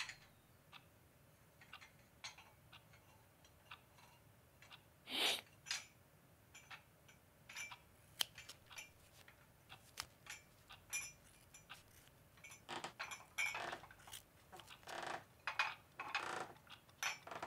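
Faint clinking of china teacups and teaspoons as tea is made and brought in on a tray, scattered at first and busier toward the end.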